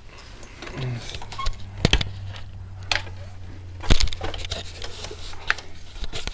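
Handling noises: a series of sharp clicks and knocks, the loudest a little under halfway through, over a low steady hum that sets in about a second in.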